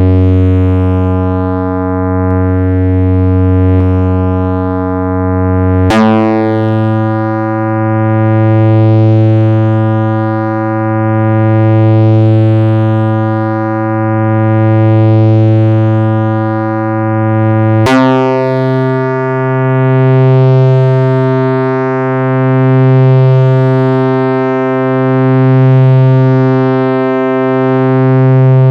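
Korg EX-800 analogue synthesizer holding a low bass drone, stepping to a new note about six seconds in and again near eighteen seconds in. The loudness swells and falls slowly, about every three seconds.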